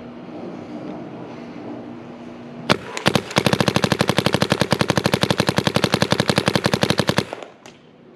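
Planet Eclipse Etek 1 electropneumatic paintball marker firing: one shot about two and a half seconds in, another just after, then a fast, even string of shots for about four seconds that stops abruptly.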